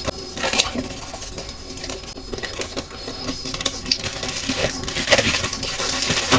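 Plastic zip-lock bag crinkling in irregular crackles as diced bell pepper goes in and the air is pressed out, densest about five seconds in.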